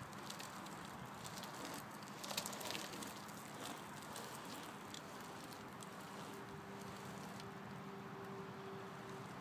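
Trikke carving scooter rolling on asphalt close by, with a few sharp clicks and rattles from its wheels and frame in the first couple of seconds, then fading to a faint even hiss as it moves away. A faint steady hum comes in about halfway through.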